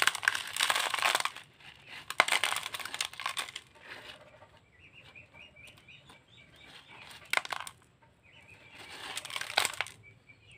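Fingers digging and scraping through coarse volcanic sand (pasir Malang) potting medium in a plastic pot, a gritty rustling in three bursts with a sharp click in between. A small bird chirps in a short run of quick high notes in the quieter middle.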